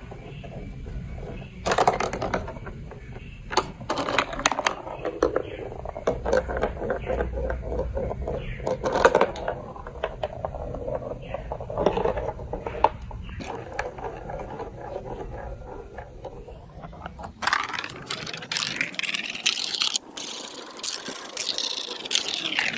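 Marbles rolling and clattering through a plastic building-block marble run, with irregular clicks and knocks as they drop onto the pieces. About seventeen seconds in it turns into a louder continuous rolling whir whose pitch glides.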